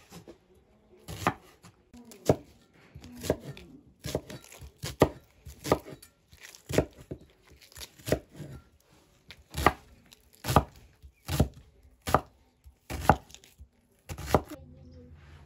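Meat cleaver chopping an onion on a wooden cutting board: a run of sharp knocks of blade through onion onto wood, roughly one a second at an uneven pace.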